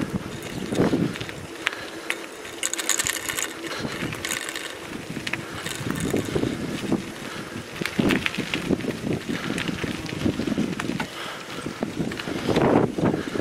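Bicycle being ridden over a rough, potholed track: tyre noise with irregular rattling clicks from the bike, and wind gusting on the microphone.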